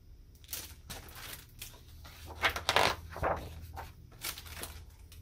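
Pages of a large picture book being turned and handled: a series of paper rustles and flaps, loudest about two and a half to three seconds in.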